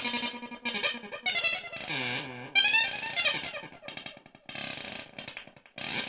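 MFOS Weird Sound Generator DIY synth circuit played through a Deep Blue delay pedal, its knobs being turned by hand. It gives bursts of pitched electronic tones that slide and warble in pitch, broken by short gaps.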